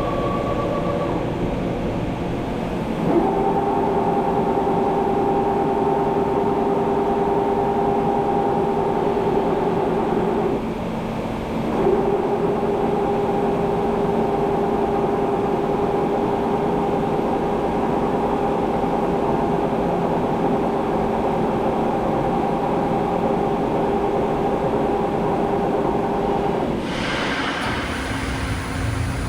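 SNK Nissin BP130/3.5 CNC horizontal boring and milling machine running under power: a steady machine whine over a low rumble starts about three seconds in, drops out briefly near the middle, then resumes and stops shortly before the end.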